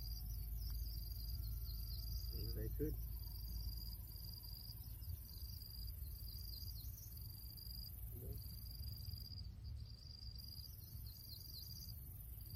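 Insects trilling in repeated high-pitched phrases of about a second each, with short gaps between them, over a low steady rumble.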